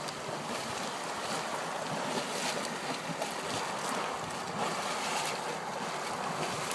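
Geothermal hot spring water bubbling and hissing in a steady, crackly rush.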